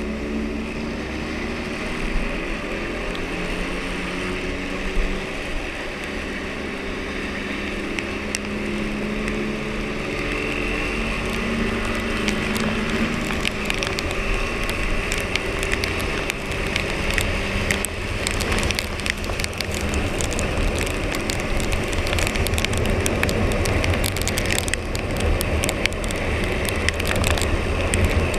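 Husqvarna Svartpilen 401 single-cylinder engine on its stock exhaust, running under way. Its steady note is clearest in the first half; later a heavier rumble and wind noise grow louder, with rain crackling on the microphone.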